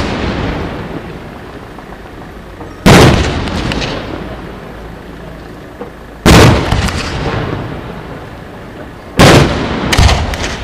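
Fireworks display: aerial shells bursting one after another about every three seconds. Each is a loud bang that dies away over a second or two, and two bangs come close together near the end.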